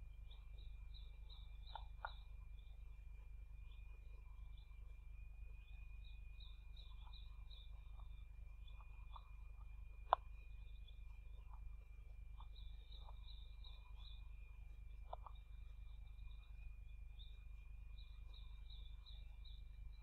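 Faint forest dawn ambience through a nest-camera microphone: quick high chirps in short repeated runs over a steady high tone and a low hum, with scattered soft ticks and one sharp click about ten seconds in.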